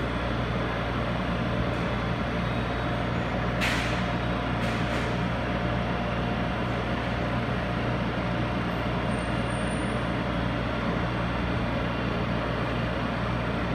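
Taiwan Railways EMU500 electric multiple unit standing at a platform with its doors open, its onboard equipment giving a steady hum with a faint held tone. A few brief sharp sounds come about four seconds in and again near the end.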